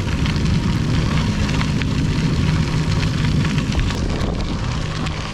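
Wind rumbling on the microphone while a gravel bike rolls over a crushed-gravel trail, its tyres crunching with many small ticks of grit.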